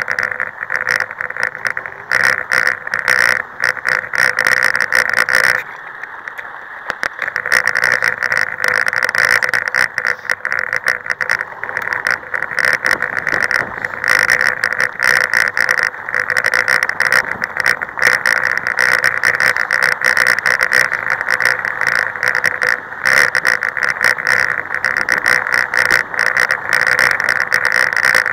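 Off-road powerbike running over a rough, stony dirt track, heard from a camera mounted on it: steady, choppy running noise that drops briefly about six seconds in.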